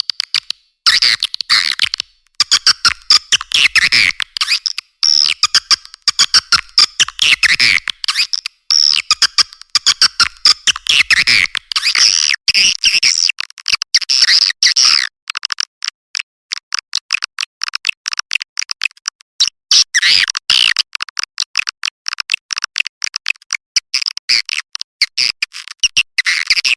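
Edible-nest swiftlet calls played as a swiftlet-house lure recording: dense, rapid, high-pitched twittering chirps and clicks in quick chopped bursts with short gaps.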